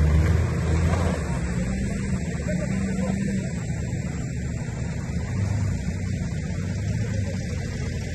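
Off-road 4x4 vehicle's engine running with a steady low drone at an even level.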